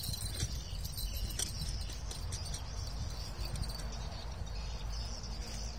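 Wind rumbling on the microphone, with faint high insect chirring and a few light clicks.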